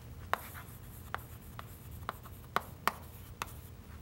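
Chalk writing on a chalkboard: a string of sharp, irregular taps and light scratches as the letters are formed, about six distinct clicks in four seconds.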